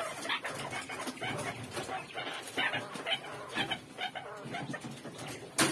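Scattered short animal calls over the rustle of hands working in wire cages, with one sharp knock near the end.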